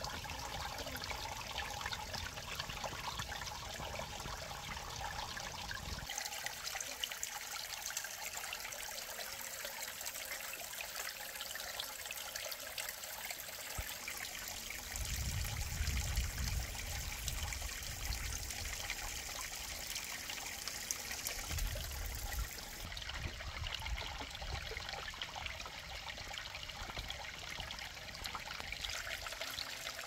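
Water trickling steadily, as from a small stream or spring, with a couple of low rumbles about halfway through.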